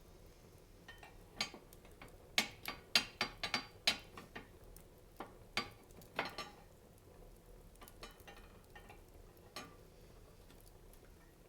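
Wood fire crackling in a fireplace: a burst of sharp pops and snaps in the first half, thinning to a few scattered pops later.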